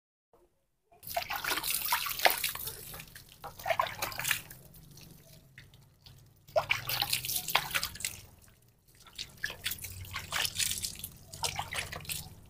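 Water splashing and dripping into a plastic basin as a soapy baby monkey is washed and rinsed by hand. It comes in three spells of a few seconds each, after a silent first second.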